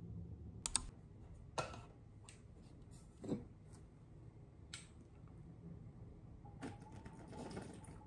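Quiet, scattered clicks and knocks of small objects being handled, a few sharp ones in the first five seconds and a denser patch of small noises near the end, as an insulated metal water bottle is lifted to drink from.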